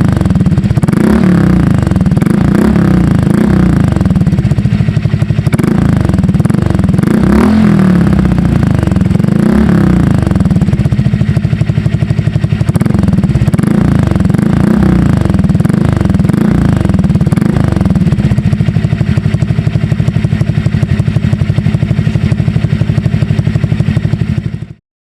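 Honda Click scooter's engine through an aftermarket SC Project exhaust, revved again and again with pitch rising and falling in quick blips, then running more steadily in the second half. It is loud and cuts off suddenly near the end.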